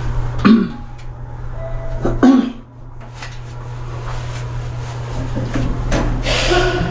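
Passenger lift travelling with a steady low hum, with two short sounds in the first few seconds, then the lift doors sliding open near the end.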